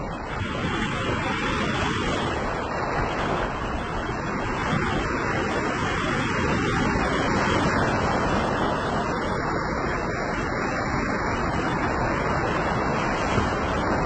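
Small sea waves breaking and washing up a sandy beach: a steady wash of surf that swells and eases slowly.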